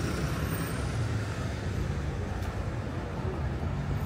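Steady road traffic noise, dominated by a low engine hum from cars and buses.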